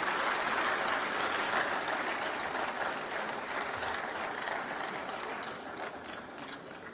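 Audience applauding, a steady patter of many hands clapping that slowly dies away toward the end.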